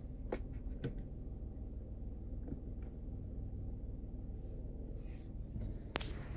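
A steady low hum in a closed car cabin, with a few faint clicks in the first second and one sharper click near the end, from the MINI's infotainment controls being operated.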